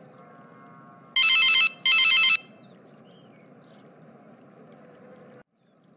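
Telephone ringtone ringing twice, two loud warbling electronic rings about half a second each, over a faint steady outdoor background with small chirps.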